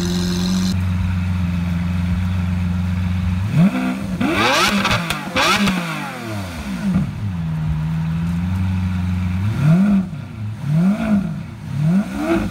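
Lamborghini Aventador's V12 idling steadily, then revved in quick blips that climb and drop back to idle: three about three and a half seconds in, and three more near the end.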